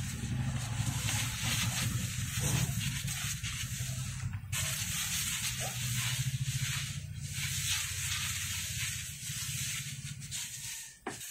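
Hiss of a hand-pumped pressure sprayer misting liquid foliar fertilizer onto leaves, broken twice by brief pauses. A steady low hum runs underneath.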